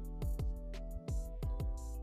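Background music with a beat of deep, falling-pitch bass drum hits and held notes.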